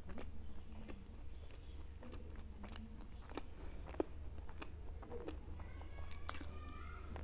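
A person chewing bites of makki ki roti (maize-flour flatbread) with sarson ka saag, close to a clip-on microphone: a run of small wet mouth clicks and smacks, with one sharper click about four seconds in.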